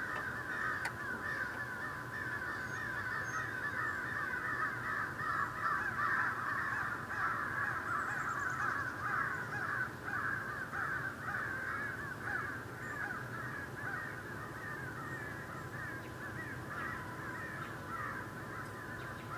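A large flock of birds calling continuously, many short overlapping calls blending into a steady chatter.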